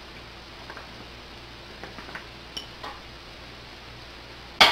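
Bowls being handled on a kitchen counter: a few faint taps and clicks over a low steady hum, then a sharp clink of dishware right at the end.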